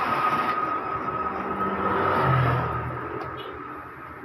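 Epson L120 inkjet printer's mechanism running, with a steady motor whine and some low hum that die down over the last second or so. The printer is working again after its fatal error was cleared.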